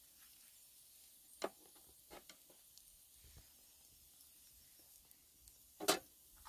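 A few light clicks and taps at a charcoal grill as skewers and flatbread are handled, over a quiet background. There is one tap about a second and a half in, a couple more soon after, and the loudest near the end.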